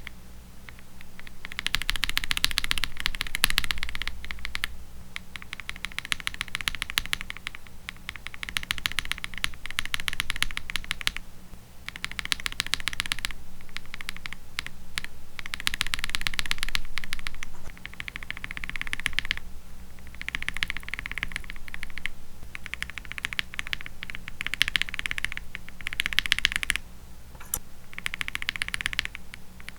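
Typing on a mechanical keyboard fitted with Akko CS switches: rapid key clacks in bursts of a few seconds, with brief pauses between them.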